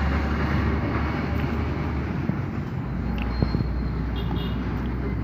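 Steady outdoor background noise with a strong low rumble, like distant traffic or wind on the microphone. A few faint clicks and rustles fall around the middle.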